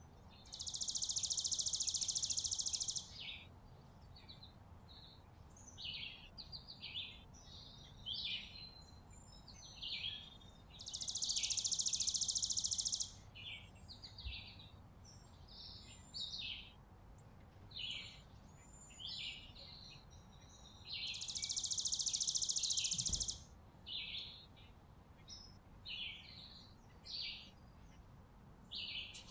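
Chickadees chirping and calling in short high notes. Three times, about ten seconds apart, a louder and even high-pitched sound lasting about two seconds cuts in over them.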